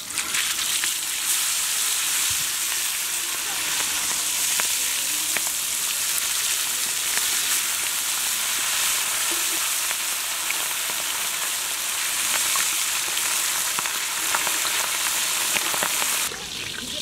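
Whole masala-coated red pomfret frying in hot gingelly (sesame) oil in a wide pan: a loud, steady sizzle with scattered crackles and pops. It begins as the fish goes into the oil and eases a little near the end.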